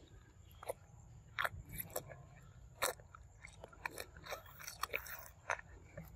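Macaque drinking from a small drink carton held to its mouth: irregular wet mouth clicks and slurps, with crinkling of the carton.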